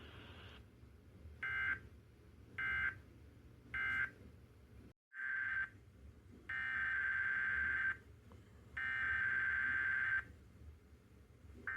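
Emergency Alert System SAME digital data bursts, buzzy two-tone squawks. First come three short end-of-message bursts a second apart, marking the close of the weather radio test. After a brief dropout, a short burst and two longer header bursts open the next alert.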